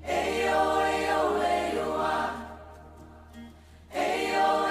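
Outro music: a choir singing long held chords. One phrase fades out about two and a half seconds in, and the next begins near the end.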